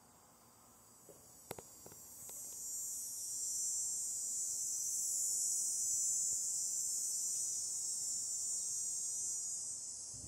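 A high-pitched insect drone that swells from about two seconds in, holds, and fades near the end. A few soft clicks come just before it.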